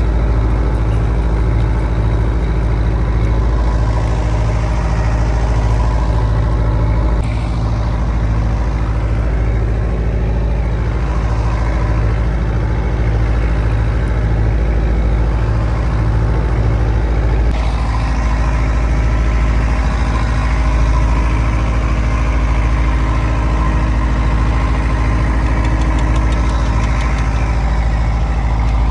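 Fishing boat's engine running steadily: a loud low hum with an even, regular throb.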